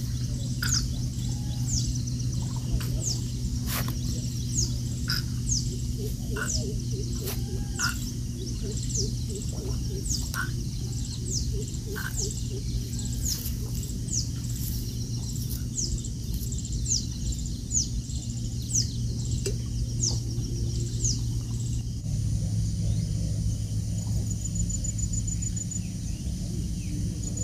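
A bird calling over and over, short falling chirps about one a second, over a steady low hum. About 22 s in the chirps stop and a rapid high ticking trill, like an insect, takes over.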